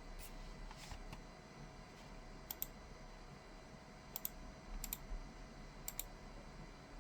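Mechanical keyboard keys being pressed: faint, scattered clicky keystrokes, several in quick pairs, rather than steady fast typing.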